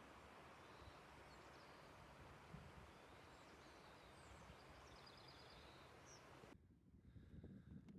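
Near silence: faint outdoor background hiss with a few faint bird chirps and one short trill. The background cuts off abruptly near the end, leaving faint rustling.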